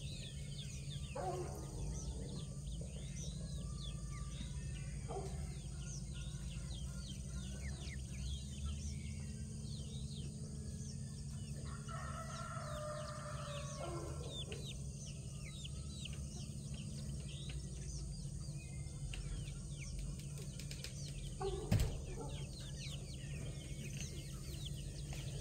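A rooster crows once, about 12 s in, a call of roughly two seconds, among a few shorter clucks and calls from chickens. Many small birds chirp the whole time, and there is a single sharp knock near the 22-second mark.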